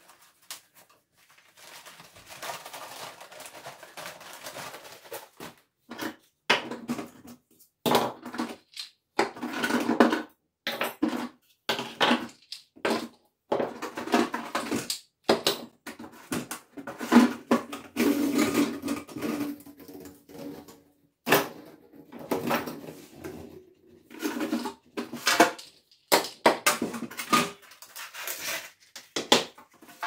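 Plastic packaging rustling and crinkling as vacuum cleaner accessories are unwrapped, with irregular clatters and knocks of hard plastic parts being handled and set down.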